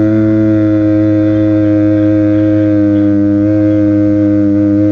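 A loud, steady low hum made of several held tones at once, with no strikes or breaks; it is amplified from a quiet night-time room recording.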